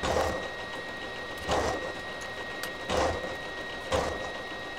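Vertical milling machine spindle running with a steady whine while the end mill cuts flats on a bolt head. A louder cutting noise swells at uneven gaps of about one to one and a half seconds.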